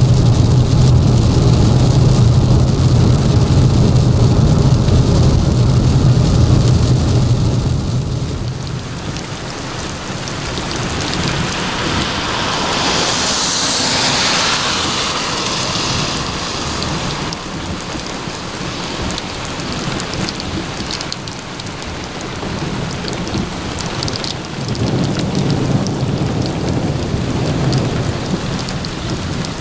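Inside a car driving through rain, engine and road noise hum steadily. After about eight seconds this gives way to steady rain falling on a wet street, with a car's tyres hissing past on the wet pavement around the middle, and a low rumble near the end.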